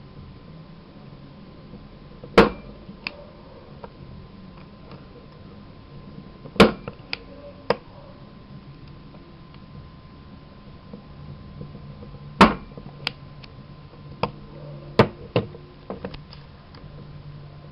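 Punch-down tool snapping as it seats UTP wires into a network jack: four loud, sharp snaps a few seconds apart, each followed by a few lighter clicks.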